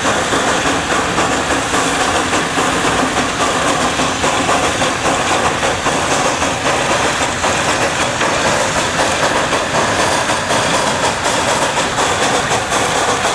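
A narrow-gauge Maffei 0-6-0T steam tank locomotive working slowly with a string of loaded fruit cages: a steady, loud mix of running gear and wagons rattling over the track.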